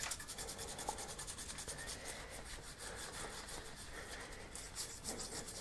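Toothbrush bristles scrubbing brown sauce into the grooves of a tarnished copper CPU cooler cold plate. The strokes are faint, fast and regular, cleaning off the corrosion.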